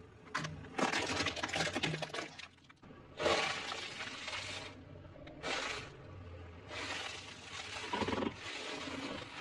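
Car tyre rolling over objects and crushing them: a plastic toy cracks, then a crisp fried snack crunches and crumbles under the tread. Several separate bursts of crackling and crunching.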